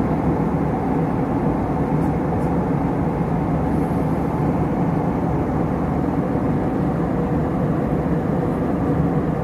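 Steady rumble and rush of a jet airliner's cabin: engine and airflow noise heard from inside the plane, even and unchanging throughout.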